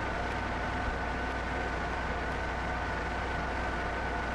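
A steady mechanical hum with a faint high whine held at one pitch, over an even hiss. It does not change and has no distinct knocks or clicks.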